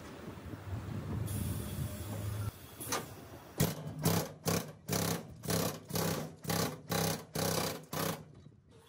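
A brake-shop machine running: first a steady hum with a hiss, then about ten rhythmic hissing strokes, roughly two a second, which stop just after eight seconds in.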